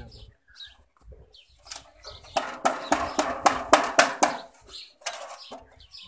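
Sheet tin from a cooking-oil can being worked with a hand tool: a rapid run of sharp metallic clicks and clatter, about five a second, starting about two seconds in and lasting a little over two seconds, then a short burst more near the end.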